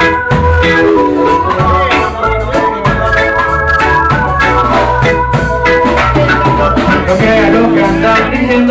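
Live band playing an instrumental passage, led by an organ-sounding electric keyboard over bass and a steady drum beat, heard through the crowd.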